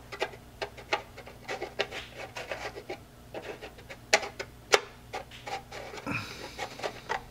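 Small plastic scale-model parts clicking, tapping and rubbing as the conning tower is worked onto its seat on the submarine hull, an irregular run of light clicks with two sharper knocks about four and a half seconds in. A brief breathy sound comes about six seconds in.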